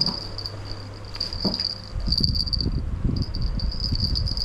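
An insect's steady, high-pitched trill that breaks off briefly and resumes. A low rumbling noise joins about halfway through.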